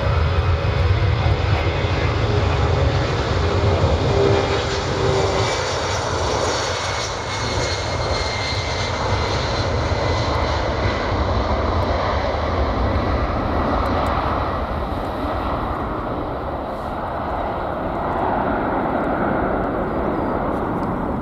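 Boeing C-17 Globemaster III's four Pratt & Whitney F117 turbofans at takeoff power through the takeoff roll and lift-off: a steady, heavy jet roar with a deep rumble. The roar is loudest in the first few seconds and eases slightly as the aircraft climbs away.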